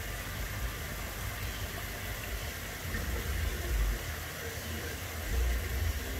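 Small garden-pond waterfall splashing steadily into a koi pond, with an uneven low rumble underneath that swells a couple of times.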